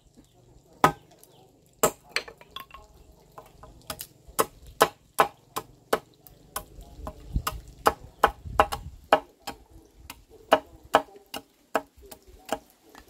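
Billhook blade chopping and shaving a wooden stick to a point: a run of sharp, irregular chops into the wood, about two or three a second.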